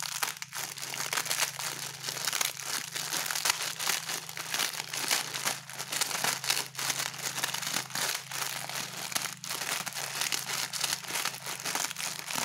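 A dry instant-noodle block being crushed by hand inside its plastic packet: continuous, irregular crinkling of the wrapper mixed with the crunch of the noodles breaking up.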